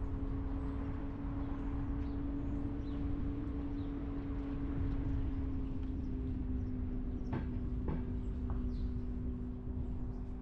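Car on the move: a steady drone of road and engine noise with a constant hum. Two short knocks come about three-quarters of the way through.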